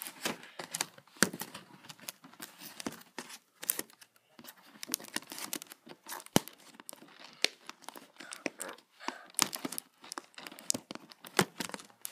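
Fingers picking and tearing at a cardboard toy box and its plastic window, with irregular crinkling, scraping and sharp clicks.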